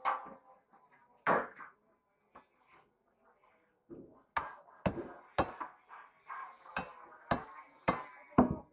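A large grass carp worked against a boti, a fixed upright fish-cutting blade, making a run of about seven sharp knocks and cracks roughly every half second through the second half. Near the start, a metal bowl clatters twice.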